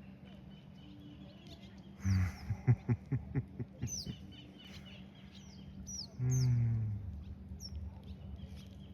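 Small birds chirping in short, high, falling notes, with a louder animal call: a quick run of low clucking notes about two seconds in, then one longer low call about six seconds in.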